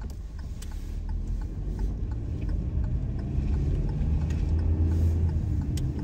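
Car engine and road noise heard from inside the cabin as the car pulls onto the road and speeds up, the engine hum rising in pitch and growing louder.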